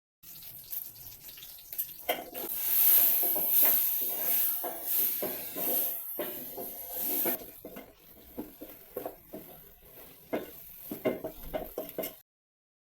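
Cooking sounds in a small kitchen: utensils clinking, knocking and scraping against pots and dishes, with food sizzling in a hot pan for several seconds near the start.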